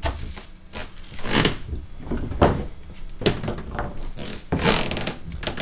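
Several separate knocks and clunks of equipment being handled and switched, the loudest about two and a half seconds in, over a low steady hum.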